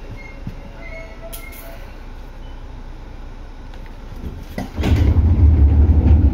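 Seibu 2000-series electric train, set 2057F: a steady low hum with faint high tones, then about four and a half seconds in a much louder low rumble sets in suddenly.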